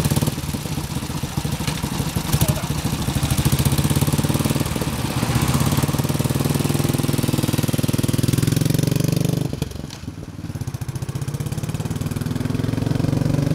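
Engine of a vintage BMW R25-series 250 cc single-cylinder motorcycle running with an even, rapid beat. It breaks off briefly about ten seconds in, then comes back as the bike rides off, getting louder near the end.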